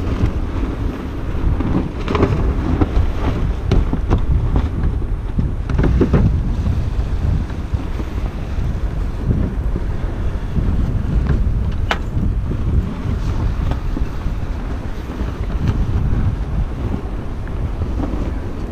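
Wind buffeting the microphone aboard a sailboat under way, over the rush of water along the hull, with a few short knocks, the sharpest about twelve seconds in.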